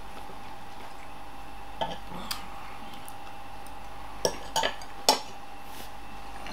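A few short clinks and knocks of things handled on a table: two about two seconds in, then three in quick succession, the last and loudest about five seconds in, over a faint steady hum.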